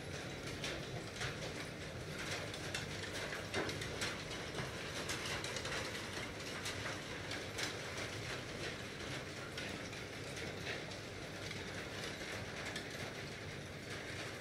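Aquarium aeration: air bubbling up through the water and breaking at the surface in many irregular small pops and clicks, over a steady low hum.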